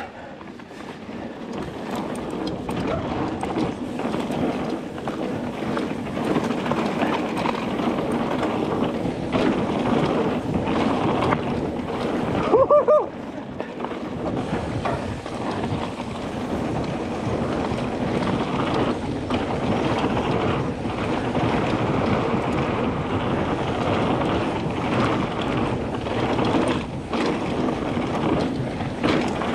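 Wind rushing over an action camera's microphone and mountain-bike tyres rolling fast over a dirt trail, with frequent knocks and rattles from the bike. About halfway a brief high-pitched squeal stands out.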